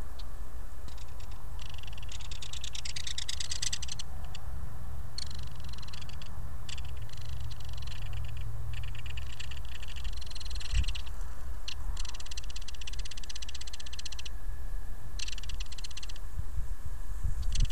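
A chorus of frogs calling in fast pulsed trills, each lasting one to a few seconds with short gaps between, over a steady low rumble.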